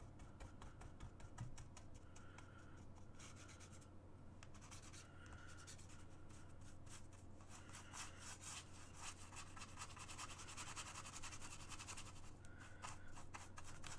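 Faint scratchy strokes of a paintbrush dragged across a stretched canvas, coming more thickly in the second half, over a low steady hum.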